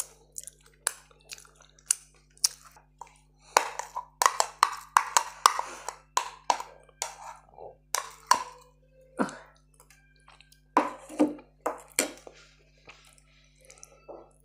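Irregular sharp clicks, taps and clatter of crockery and fingers handling food, densest a few seconds in: saag is served from a plate onto a glass plate and mixed with rice by hand.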